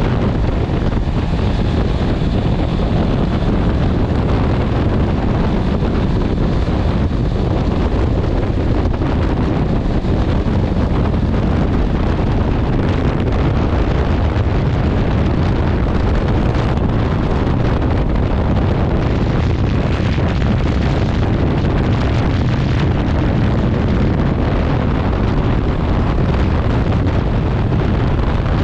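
Steady heavy wind noise on the microphone over a Honda CB650R's inline-four engine running at road speed.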